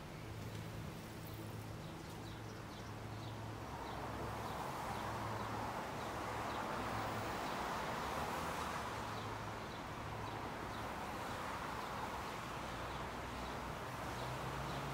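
Freight train of tank cars rolling across a railway bridge: a steady rumble and low hum, with faint, evenly repeated clicks of wheels passing over rail joints. It grows a little louder about four seconds in.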